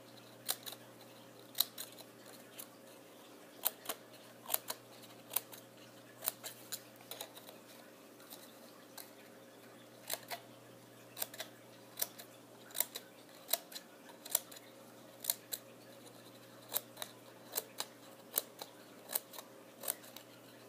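Scissors snipping a row of short cuts into the folded walls of a paper track strip, a sharp snip every second or so.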